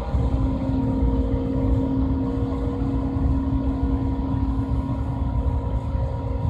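John Deere C670 combine harvester running steadily: a low engine rumble with a constant humming whine from the machinery over it.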